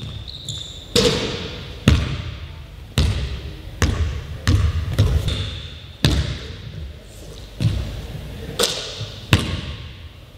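Basketball bouncing on a hard court, irregular knocks roughly once a second, each with a short ringing tail.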